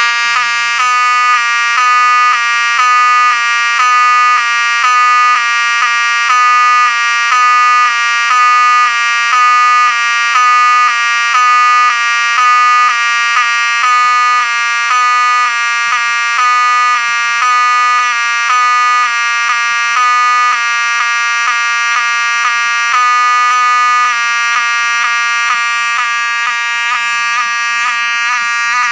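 Wheelock 7002-12 horn/strobe fire alarm sounding loudly and continuously as a harsh, buzzy electronic horn tone. Its pitch steps back and forth between a higher and a lower note in a steady rhythm, dipping each time the strobe flashes, because the unit is running on three dying 9-volt batteries in series instead of its rated 12 volts.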